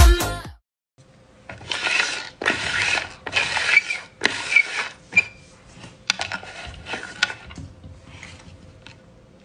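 Dance music cuts off about half a second in. Then come plastic lids scraping and sliding across a hard tabletop in a run of short strokes, followed by scattered clicks and lighter scrapes as a lid is picked up.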